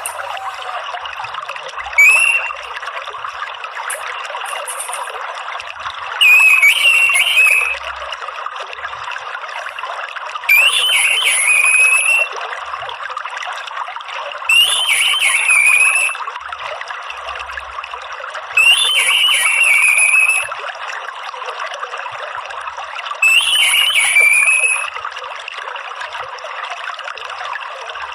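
Orange-headed thrush giving the same short, wavering, whistled call phrase about every four seconds, six times, over the steady trickle of running water.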